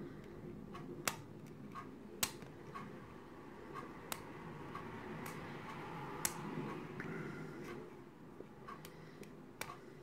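Lock pick working the pin stacks of a brass euro-profile cylinder under a tension wrench: small metallic ticks and scrapes, with a few sharper clicks spaced a second or two apart, over soft handling rustle. The picker is probing for counter-rotation of the core in a deep false set.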